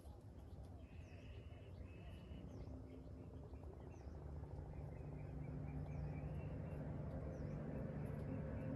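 Birds chirping faintly, a few short high chirps spread through, over a low steady hum that comes in about halfway and grows louder.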